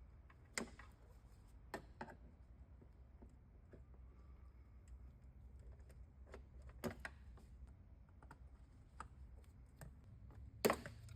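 Faint, irregular plastic clicks and snaps as a clip removal tool pries the door wiring harness's retaining clips out of the door, with a sharper snap about seven seconds in and another near the end.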